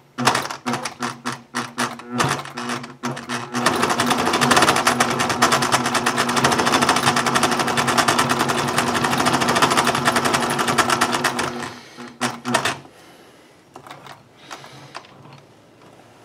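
Industrial sewing machine zigzag-stitching a parachute suspension line. A few slow single stitches come first, then the machine runs at a steady fast rate for about eight seconds before slowing and stopping; after that there is only faint handling.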